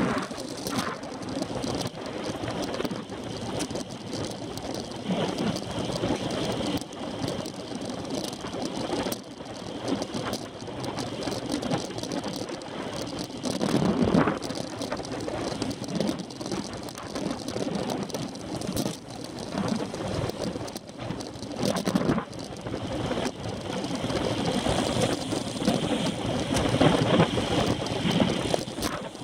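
Road bicycle ridden at racing speed, heard from a camera on its handlebars: wind rushing over the microphone with frequent small rattles and knocks from the bike over the road, swelling louder every so often.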